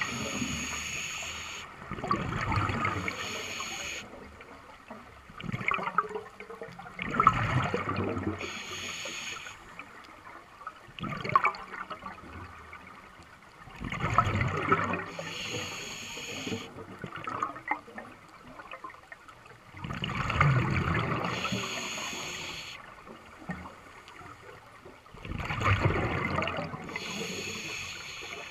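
Scuba diver's regulator breathing, heard underwater. Each exhalation comes out as a loud burst of rumbling, gurgling bubbles, and each inhalation as a high hiss. The breath cycle repeats roughly every six seconds.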